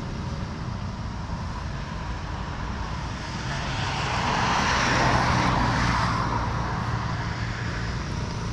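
Motor vehicle running on the road, a steady low engine rumble with road and wind noise. About halfway through, a rush of noise swells and fades again.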